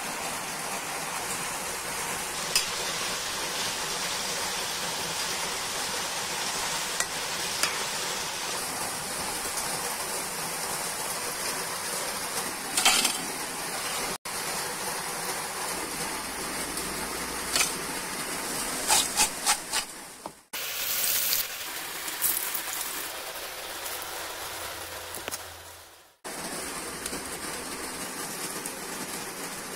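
Potato slices deep-frying in hot oil in a wok: a steady sizzle, with a spatula now and then scraping and knocking against the pan as the chips are stirred.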